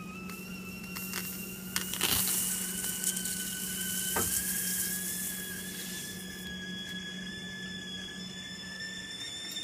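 Red-hot kitchen knife blade hissing and sizzling as it cuts into a banana, the skin steaming. The hiss starts about two seconds in and fades out a little past halfway, with a few sharp clicks of the blade near the start. Under it, a steady whistle-like tone rises slowly in pitch.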